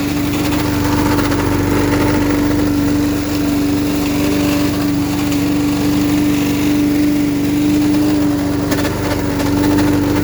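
Small gas engine of a Billy Goat LB50Q walk-behind leaf vacuum running steadily at a constant speed, with a few brief crackles about nine seconds in.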